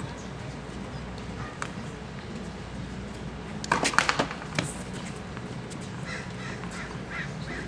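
Tennis rally in a stadium: isolated sharp pops of racket on ball over a steady crowd hum, with a quick run of several loud sharp cracks about halfway through.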